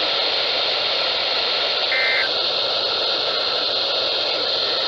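Steady radio static hiss from a weak broadcast reception of an emergency weather alert, with a short electronic beep about two seconds in.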